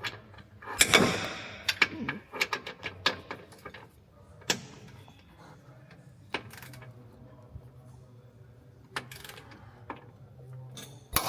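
Scattered metallic clicks and clanks from a torque wrench and hand tools being worked on car suspension bolts: a quick run of clicks in the first few seconds, then single clicks every second or two.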